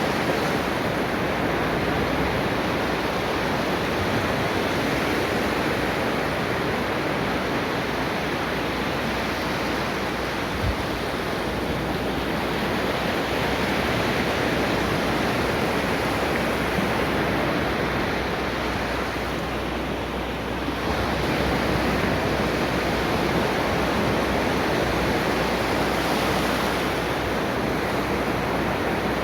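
Ocean waves breaking and washing onto the shore in a steady rush of surf. The surf eases briefly about two-thirds of the way through, then swells again with the next wave.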